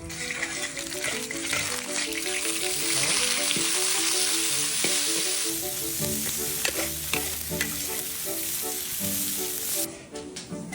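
Food sizzling loudly in hot camellia oil in a wok, with ginger slices going in, stirred with a spatula that scrapes and clicks against the pan. The sizzle eases off suddenly near the end.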